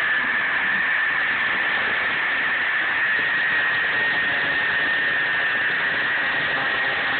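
Grinder cutting slowly through the metal shackle of a padlock, a steady high whine over a continuous grinding hiss.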